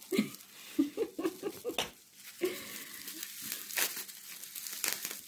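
Clear plastic bag and bubble-wrap packaging crinkling and rustling as it is handled, with a few sharper crackles.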